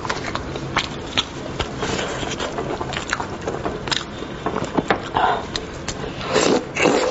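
Plastic-gloved hands tearing and picking meat off a boiled lamb's head, with many small wet clicks and crackles. Near the end a mouthful is taken and there is a louder stretch of wet chewing and lip smacking.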